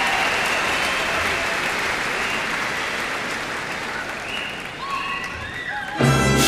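A large concert-hall audience applauding, the clapping slowly dying away. Near the end a full orchestra strikes up suddenly and loudly.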